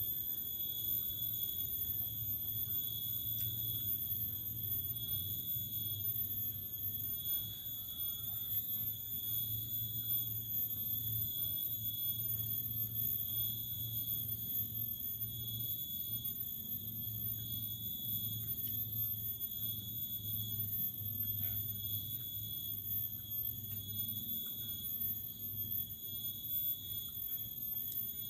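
Insects droning one continuous high-pitched tone, with a low rumble underneath and a few faint clicks.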